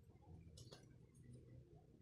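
Near silence: room tone, with one faint, short click a little past a third of the way in.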